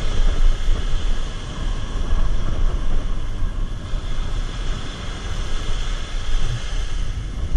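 Rough surf breaking on the beach at close range: a steady wash of water noise with a heavy low rumble of wind on the microphone.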